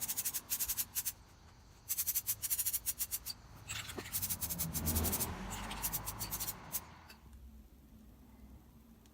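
Rapid rattling in three bursts, the sound of an aerosol spray-paint can being shaken, its mixing ball clattering inside. A rushing noise swells in the middle and fades about seven seconds in.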